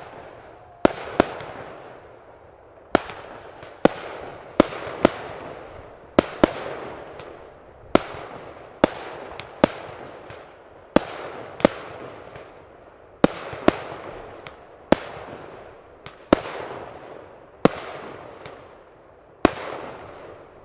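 Aerial firework shells bursting one after another, a sharp bang roughly every second, each trailing off in a fading tail of noise.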